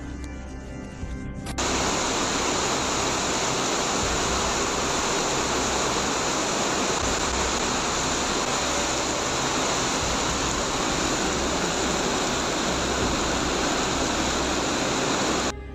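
Torrential rain pouring down in a loud, steady hiss. It cuts in abruptly about a second and a half in and stops suddenly just before the end.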